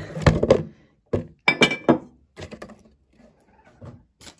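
A square Paşabahçe glass storage jar being slid out of its cardboard box, the cardboard rustling and scraping. About a second in, the jar and its glass lid knock down on a wooden table in a few sharp thunks, with a brief glassy clink. Smaller knocks follow.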